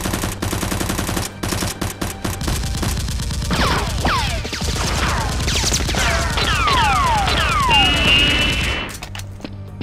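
Rapid machine-gun fire sound effects, dubbed over a Nerf blaster fight. From about three and a half seconds in, a run of falling whistling tones like bullet ricochets joins the shots, and everything stops shortly before the end.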